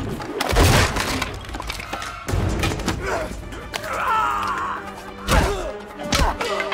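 Action-film fight soundtrack: score music under a series of hard hits, thuds and crashes from a hand-to-hand brawl.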